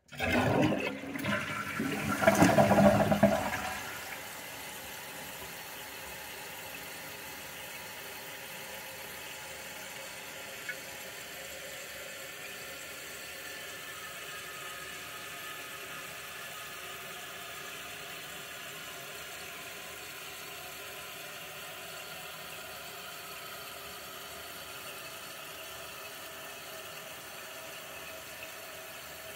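A toilet flushed by its lever: a loud rush of water out of the tank for about four seconds, then the fill valve's steady hiss as the tank refills.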